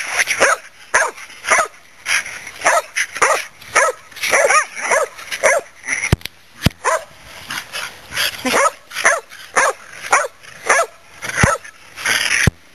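Kerry Blue Terriers barking in play: a long run of short, high barks, about two a second. A few sharp clicks fall between them.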